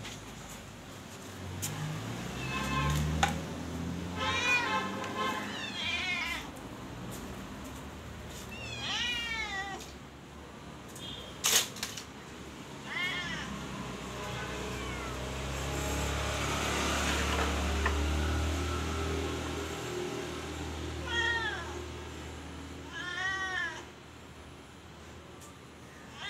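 Kittens meowing repeatedly: about seven short meows that rise and fall in pitch, some in quick pairs, with a long gap in the middle. A sharp click comes about halfway through.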